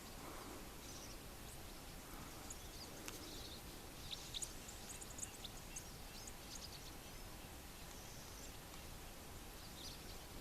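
Small birds chirping faintly and on and off, with a flurry of short high chirps about four to seven seconds in, over a steady outdoor background hiss.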